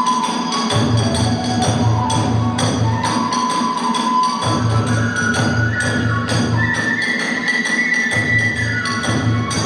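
Kagura hayashi festival music: a sustained flute melody over quick, steady drum beats and clashing hand-cymbal strikes.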